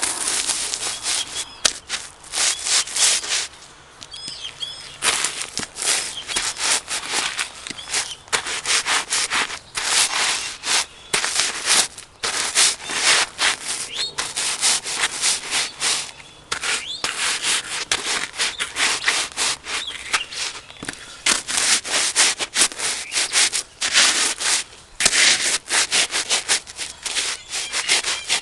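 Crackers being crushed under Danner Mountain Light hiking boots: dense crunching and crackling as the boots stomp and grind on the pile. The crunching comes in bursts of a second or two with short pauses between them.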